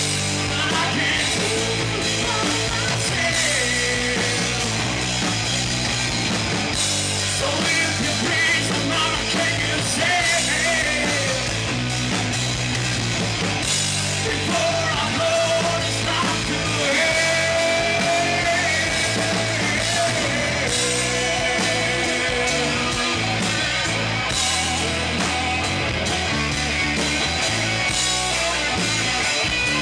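A rock band playing live: electric guitars, bass and drums, with a lead singer singing over them through the PA.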